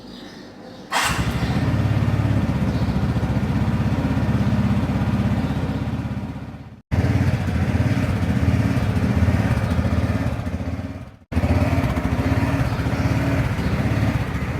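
TVS Ntorq 125 scooter's single-cylinder engine running while the scooter is ridden, starting about a second in and cut off abruptly twice before picking up again.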